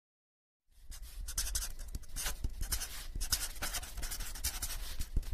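Pencil scratching on paper in quick, irregular sketching strokes, starting about a second in.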